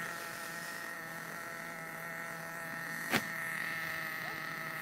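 Small nitro engine of a Redcat Aftershock 3.5 RC truck, a steady buzz holding one pitch, with a single sharp click about three seconds in.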